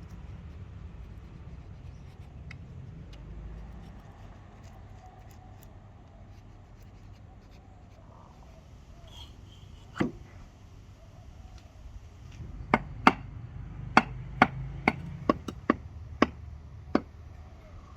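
Hand tool striking wood: a single knock, then about nine sharp strikes in quick, uneven succession over the last five seconds.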